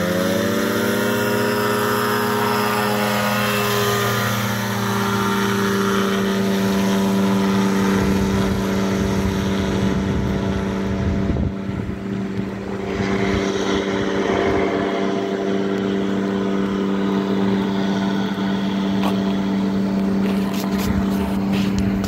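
Quad City Challenger amphibious ultralight's engine and propeller opening up to full power for takeoff: the engine pitch rises over the first couple of seconds, then holds steady as the aircraft runs off down the runway.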